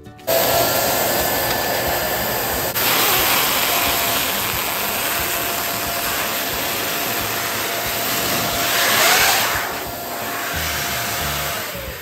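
Electric balloon pump blowing air into a foil balloon: it starts suddenly, runs with a steady motor whine and rush of air, and winds down near the end with a falling pitch.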